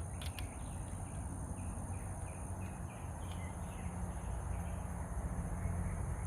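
Outdoor background: a steady low rumble with faint bird chirps, and a couple of small clicks just after the start.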